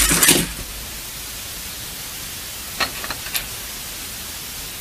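Pieces of a stiff puzzle cube clattering as it pops apart, stopping about half a second in, then steady hiss with a few light clicks about three seconds in.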